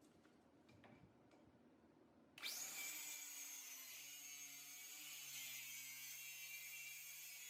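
An electric power tool's motor spins up about two seconds in and then runs steadily until near the end, with a high, steady whine.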